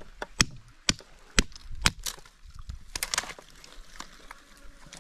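A hand-held stone striking a seashell on a rock to crack it open: sharp knocks about every half second, then a quick cluster of cracks about three seconds in.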